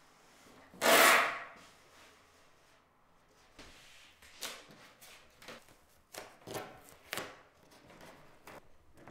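Masking tape ripped off the roll in one long pull about a second in, the loudest sound, then several shorter rips and rubs as tape and masking paper are pressed along a surfboard's rail.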